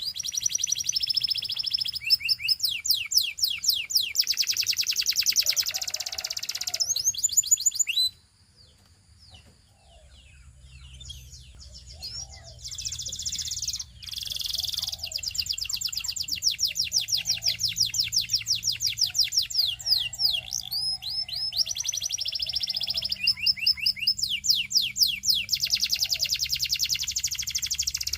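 Russian canary singing long, fast trills of rapidly repeated high notes, changing from one roll to the next. It falls silent about 8 seconds in, then picks up softly and sings on in full.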